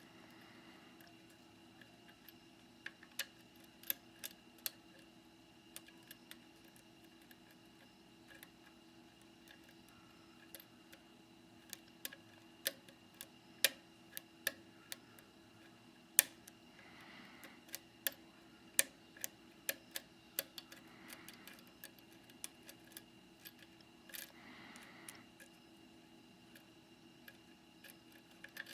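Dimple lock pick clicking and ticking against the pins inside a Securemme K2 10-pin dimple lock cylinder under tension: sharp, irregular small clicks, a few louder than the rest.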